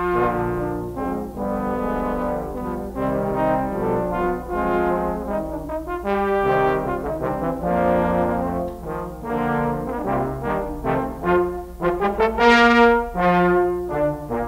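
Trombone playing a melody of held notes, from a recording made between 1958 and 1963, with a steady low hum beneath.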